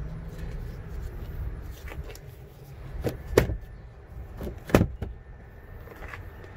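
Third-row seat mechanism of a 2013 Toyota Highlander being worked by its pull straps: two pairs of sharp latch clacks, about three seconds in and again near five seconds, over a low steady rumble.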